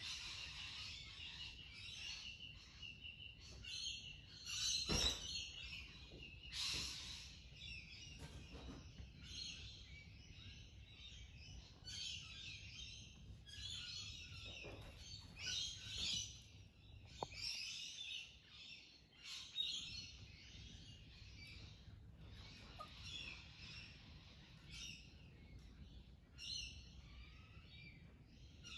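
Birds chirping and calling, with a short thump about five seconds in.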